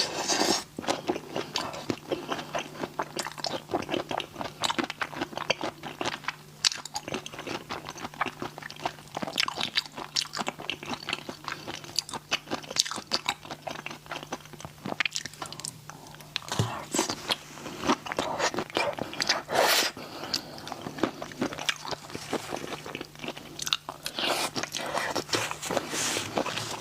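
Close-miked eating sounds: spicy raw shrimp being bitten and chewed, with irregular crunches and wet clicks that come in busier spells, over a faint steady low hum.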